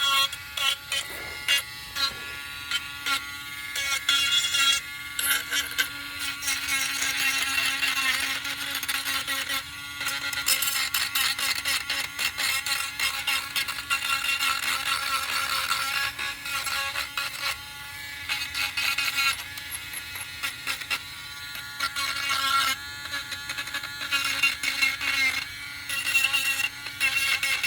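Small handheld electric sanding tool running with a high buzzing whine, its level dipping and coming back every second or so as it is worked against the surface.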